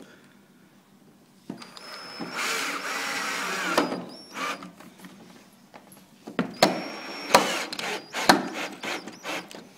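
Cordless drill-driver with a Phillips (star) bit driving a shaft screw into a dowel in a panel. The motor runs twice, for two to three seconds each time, its pitch wavering under load, and is followed by several sharp clicks and knocks near the end.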